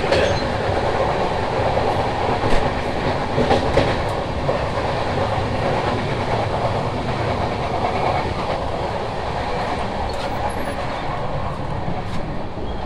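Indian Railways passenger coach running at speed, heard from inside near the door vestibule: a steady rumble and rattle of the carriage and wheels on the track, with a few sharp knocks about two and a half and three and a half seconds in.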